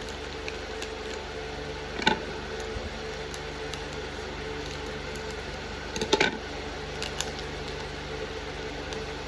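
Small plastic toy packaging being handled: brief crinkles and clicks about two seconds in and again around six seconds, over a steady low hum.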